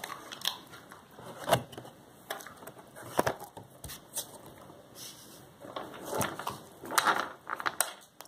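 Cocker spaniel crunching cashews: a string of irregular sharp crunches and clicks, coming thicker about six to eight seconds in.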